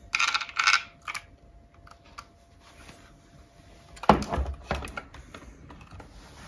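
Hard plastic 3D-printed parts being handled: a rustle and scrape at first, then a sharp plastic knock about four seconds in as the red battery adapter meets the white case, followed by a few light clicks.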